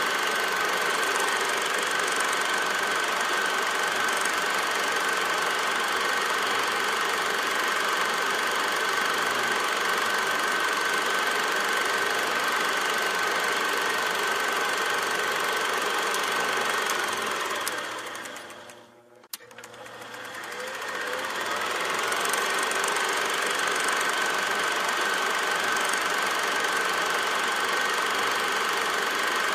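Steady mechanical running noise with a constant high whine, like a machine mechanism. A little over halfway through it fades down almost to nothing, a single click sounds at the quietest point, and it fades back up to the same steady level.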